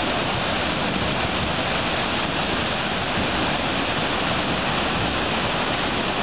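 Iguaçu Falls thundering: a steady, dense rush of falling water with no change in level.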